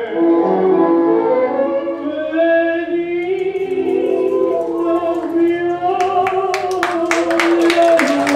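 Recorded tango orchestra music: held, gliding melodic lines, then, from about six seconds in, a run of sharp staccato accents a few per second.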